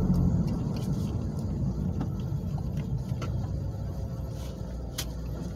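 Low, steady rumble of a car heard from inside the cabin, with a few faint clicks.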